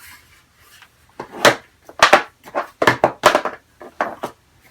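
Cardboard packaging of an Apple Watch box being handled and opened by hand: a quick run of about a dozen scrapes and knocks starting about a second in.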